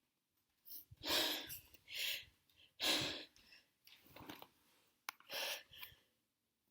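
A person's quick, gasping in-breaths: four soft catches, the first three about a second apart and the last near the end. These are pre-sneeze hitches from a nose tickled by dust.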